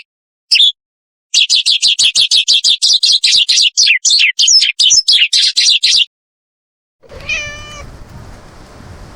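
Kittens mewing: a rapid string of short, high-pitched cries, about five a second, that stop suddenly. After a pause comes a single drawn-out meow over steady background noise.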